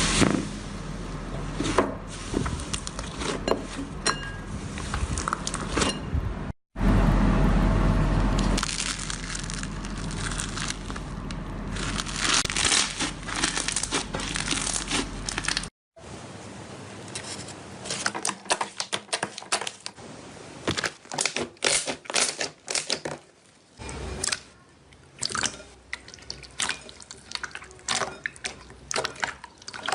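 Slime being squeezed, poked and stretched by hand, making wet, sticky squelches, crackles and pops, in several short clips. A low hum lies under the first part, and the last part has many quick sharp pops.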